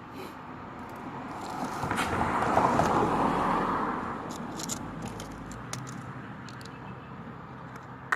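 A car passing by: road noise swells to a peak about three seconds in and fades away, with a few small clicks.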